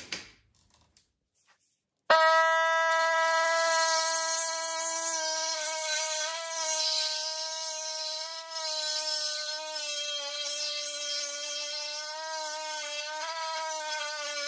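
Small cut-off tool starting abruptly about two seconds in and running at a steady high whine with a hiss, its pitch dipping slightly now and then as the wheel cuts into the steel frame along a crack.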